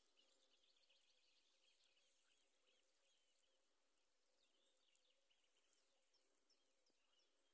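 Very faint birdsong: small birds chirping in short, varied phrases, over a faint steady hum.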